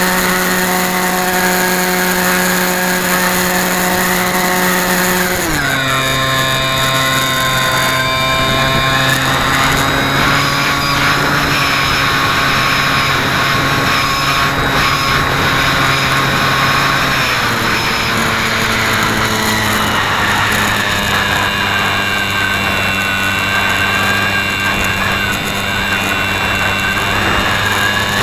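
RC model airplane's motor and propeller, heard close up from the onboard camera and running at a steady pitch. About five seconds in the pitch drops sharply as the motor slows, and it steps down a little again after about seventeen seconds.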